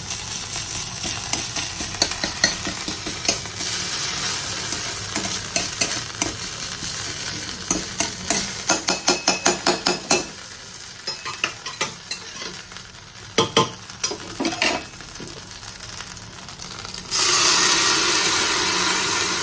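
Butter, cumin and crushed ginger sizzling in a pan while a spoon stirs and scrapes against it, with a quick run of stirring strokes around the middle. About three seconds before the end the sizzle suddenly gets louder and stays louder.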